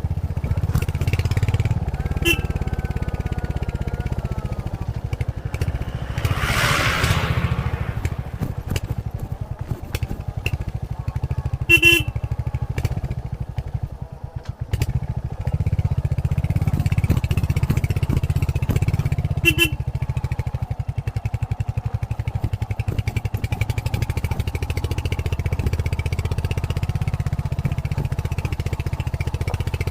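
Royal Enfield Hunter 350's single-cylinder engine running steadily on its stock exhaust while riding. It eases off briefly about halfway through, then pulls again. Three short beeps sound over it, the loudest near the middle.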